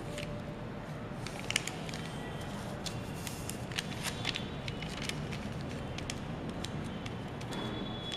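Origami paper being folded and creased by hand: scattered crisp crackles and rustles of stiff paper, the sharpest about one and a half seconds in, over a steady background hiss.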